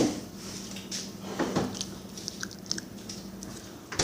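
Close-up chewing and biting of food, with scattered small clicks and taps and a steady low hum underneath.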